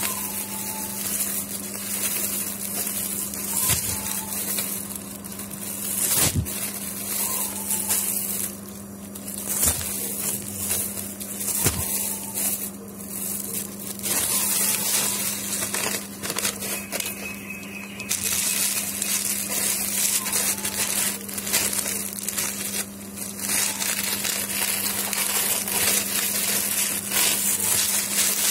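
Clear plastic packaging crinkling and rustling irregularly as hands handle and unwrap plastic-wrapped goods, with a steady low hum underneath.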